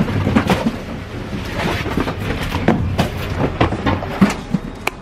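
Irregular knocks and clatter with a noisy, rustling background, like objects being handled, scraped and shifted.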